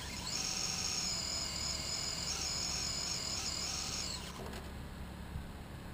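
RC drag car's brushless electric motor whining at part throttle, its high pitch wavering up and down, then winding down and stopping about four seconds in.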